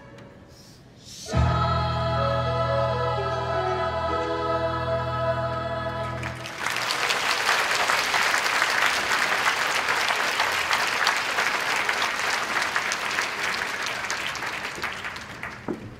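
Children's choir holding the final chord of a song, which cuts off about six seconds in, followed by audience applause that fades near the end.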